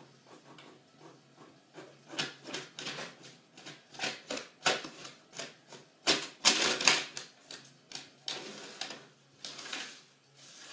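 Printer running and feeding paper, a series of uneven whirring and clattering passes, mixed with paper rustling as a cat paws at the sheets in the output tray.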